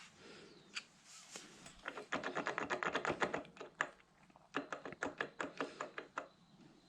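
Rapid clicking from hand-tool work on a small motorcycle engine, in two quick runs: a dense one about two seconds in and a sparser one near the end.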